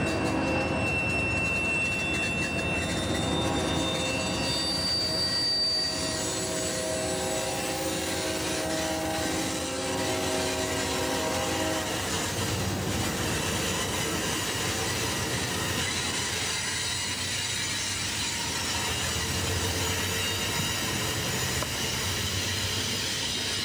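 Amtrak Superliner bilevel passenger cars rolling past close by: a steady rumble of steel wheels on rail, with thin high squealing tones over the first half.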